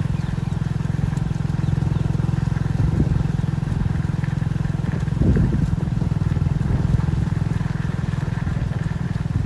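A small vehicle engine running steadily at low, even revs, with a couple of brief knocks about three and five seconds in.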